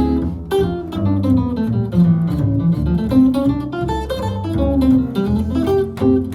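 Jazz guitar playing a run of quick single notes and chords over walking bass, with no vocal.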